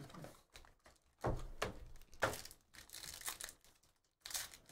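Foil trading-card packs and their cardboard box handled and opened by hand: irregular crinkling, rustling and tearing, with a few sharper crackles.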